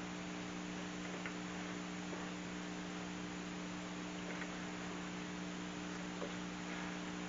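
Steady electrical mains hum, a low drone with a higher overtone, over a faint even hiss, with a few faint ticks.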